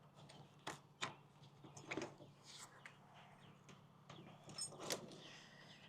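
Faint, scattered clicks and knocks of hand work on equipment, over a faint low steady hum.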